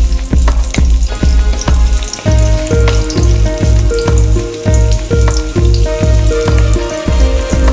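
Garlic cloves frying in hot cooking oil, sizzling and crackling as a wooden spatula stirs them. Background music with a steady bass beat plays under it, its melody fuller from about two seconds in.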